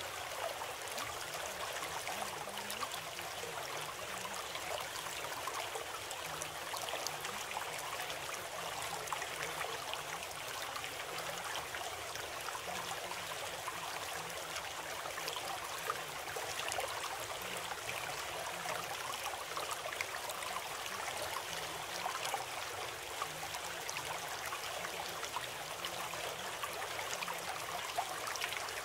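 Running water of a stream, a steady, even rush with no breaks.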